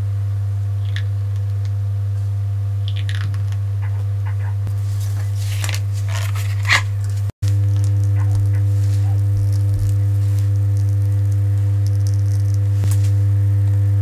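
A steady low hum with a few scattered soft clicks and crackles. It drops out for a moment about seven seconds in and comes back slightly louder.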